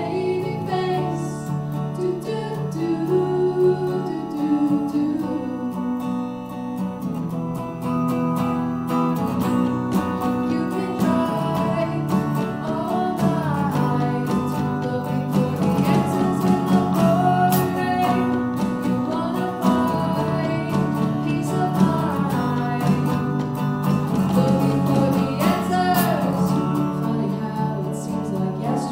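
Small rock band playing live: female singing over electric guitar, electric bass and a drum kit with cymbals.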